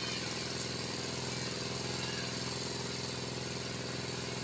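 Mitsubishi Canter truck's diesel engine idling steadily.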